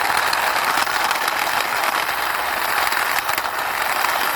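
A toy police car pushed along by hand, its wheels giving a steady rolling noise.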